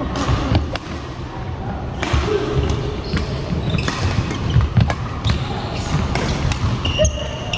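Badminton rally: sharp racket strikes on the shuttlecock and footfalls stamping on the court floor as the player lunges, with a short squeak near the end and voices from the hall behind.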